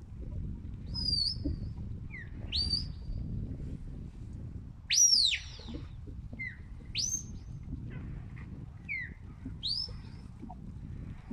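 A shepherd's whistle commands to a working sheepdog: a series of about seven sharp whistled notes, each sweeping up or down in pitch, the loudest about five seconds in. Wind rumbles on the microphone underneath.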